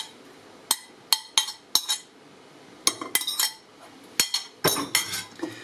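Metal fork clinking and scraping against a ceramic plate as cheese cubes are pushed off into a pot: a scattered string of sharp clinks, with a cluster near the end.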